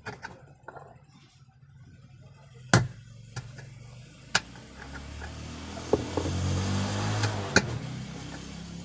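Electric drill running in reverse against a seized bolt on a washing machine's wash shaft, its hum building over the second half, with a few sharp knocks. The bolt is stuck hard enough that the drilling heats it.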